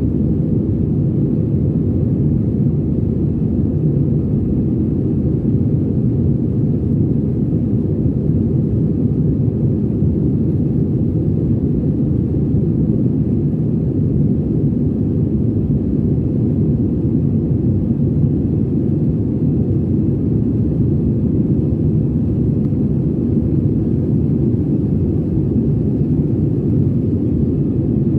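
Airliner cabin noise: the jet engines and rushing air heard from inside the passenger cabin as a steady, even low rumble.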